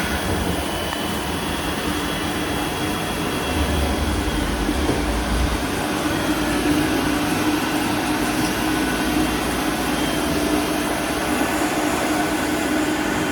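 Gildemeister Speed 12-7 Linear automatic lathe running: a steady mechanical hum, with a steady mid-pitched tone that comes in about two seconds in and grows stronger, and a low rumble that swells briefly around the middle.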